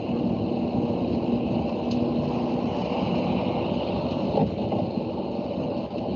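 Steady engine and road noise of a moving car, heard from inside the car, with a faint hum in the first few seconds.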